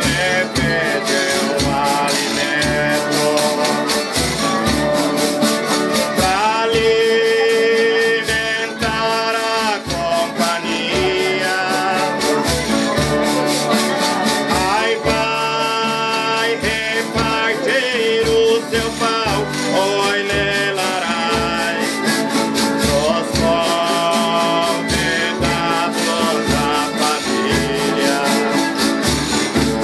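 Folia de Reis music: strummed guitars over a steady shaker-and-percussion beat, with voices holding long sung notes about every eight seconds.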